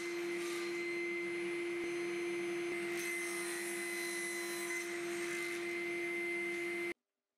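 Axminster cast-iron table saw's induction motor running steadily with the blade spinning: a constant hum with a thin high whine over a hiss. It cuts off suddenly near the end.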